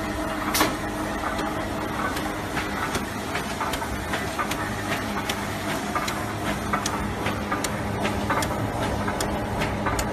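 QH 9905 cardboard box- and tray-forming machine running in production: a steady motor hum under a regular, rapid clacking of its forming mechanism, with one louder clack about half a second in.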